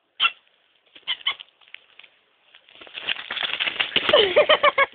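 Domestic cat vocalizing: a couple of short sounds early on, then a longer pulsing, wavering cry over the second half that is the loudest part.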